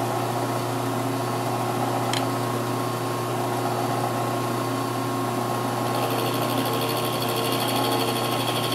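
Milling machine motor running steadily as its cutter takes a little more off a wooden block to cut a notch. A single click about two seconds in, and a higher hiss joins about six seconds in.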